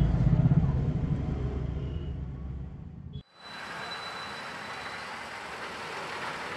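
A low rumble that fades and cuts off abruptly about three seconds in, then the steady hiss of street traffic with a scooter riding past.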